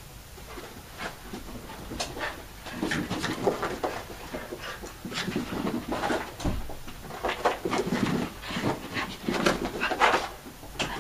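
Two Chinese Crested Powderpuff dogs playing together, making a quick, irregular run of short, noisy sounds that starts about a second in and grows busier.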